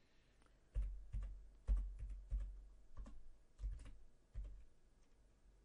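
Computer keyboard keystrokes typing values into fields: about a dozen irregular taps, each with a dull low thump, that stop about four and a half seconds in.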